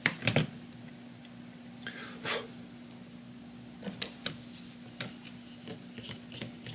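Small hand-work noises: a sharp clatter right at the start, then scattered light clicks, taps and rubbing as tools and parts are handled, over a steady low hum.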